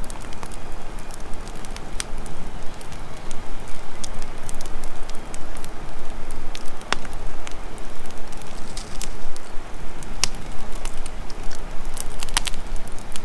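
Campfire crackling: scattered sharp pops and snaps over a steady hiss.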